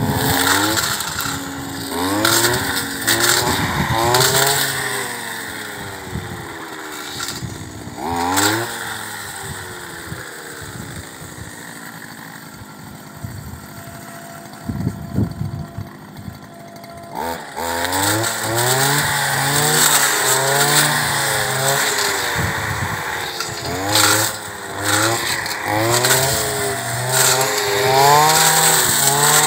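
Petrol brush cutter cutting dry grass and weeds, its engine revving up and dropping back over and over. It eases to a lower, quieter speed for several seconds around the middle, then revs hard again.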